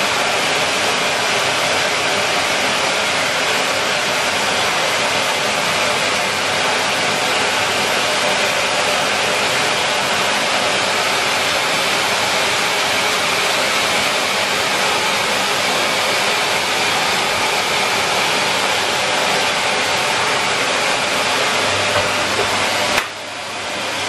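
Henry vacuum cleaner running steadily: a constant, loud rushing hiss of motor and airflow, which dips briefly near the end.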